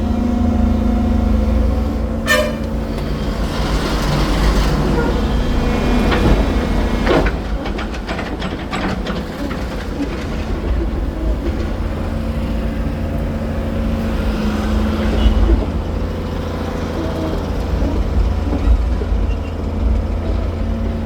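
A heavy diesel machine running steadily with a deep rumble, with metallic clanks and scrapes for the first several seconds, including a sharp ringing scrape about two seconds in.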